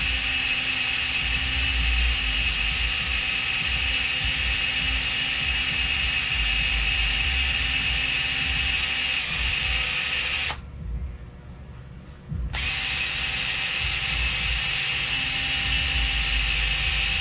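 Small high-speed power tool running at a steady speed while polishing the brass of a carburetor. It stops for about two seconds past the middle and then starts again.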